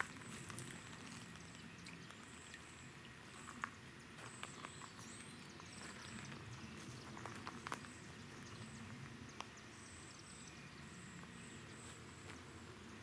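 Quiet outdoor yard ambience: clusters of short, very high chirps repeat through it, with scattered light clicks and steps from someone walking.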